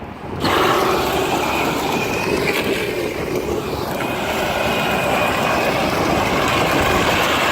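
Power Wheels ride-on Jeep's electric drive motors and gearboxes running on an 18 V battery, starting suddenly about half a second in and then running steadily with a faint high whine, along with its plastic wheels rolling.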